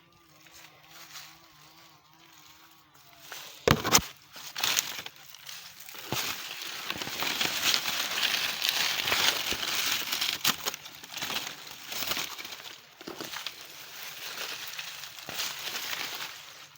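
Dry, dead bean plants crackling and rustling as they are pulled up by the roots and handled, with a loud knock about four seconds in.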